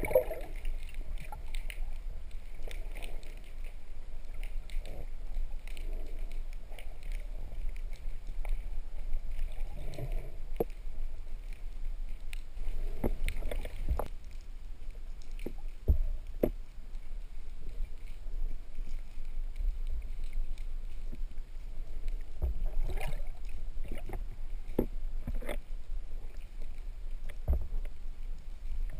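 Muffled water noise picked up by a camera held underwater: a steady low rumble with scattered clicks and knocks.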